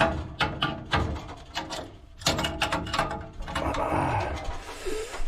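Wrench tightening the compression nuts on flexible water-heater supply lines: a series of irregular metallic clicks and knocks as the nuts are cranked down.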